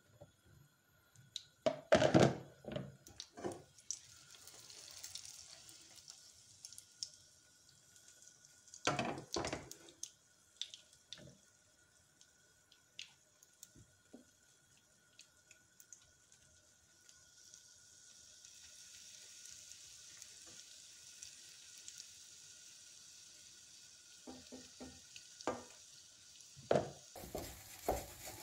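Kitchen work sounds: a burst of clatter and knocks about two seconds in and another about nine seconds in, then a faint steady hiss lasting several seconds, and a few more sharp knocks near the end. A faint steady high tone runs underneath.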